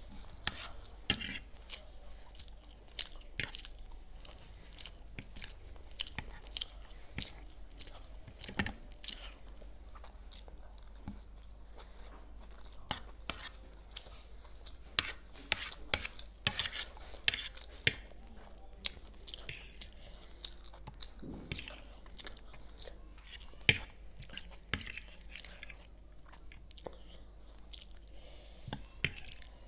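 Close-up eating sounds of chilli chicken chowmein: wet chewing and slurping of noodles, with many sharp, irregular clicks throughout.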